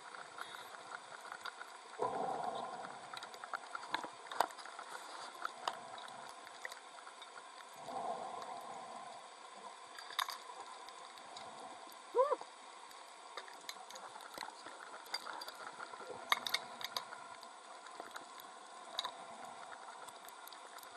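Underwater ambience on a reef heard through a dive camera housing: a steady hiss dotted with faint scattered clicks and ticks, two short rushes of bubbles about two and eight seconds in, and a brief squeak just past the middle.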